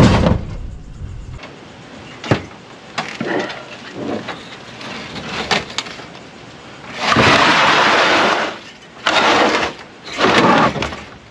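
A heavy air-conditioner condenser unit being shoved and dragged over a pickup truck's ribbed bed liner. A sharp knock comes about two seconds in, with a few smaller clunks after it; in the second half there are three long scraping slides, the first lasting about a second and a half.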